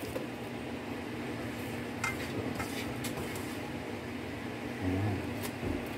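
Faint clinks and handling noises as moringa (malunggay) leaves are dropped into a pot of fish soup, over a steady low hum.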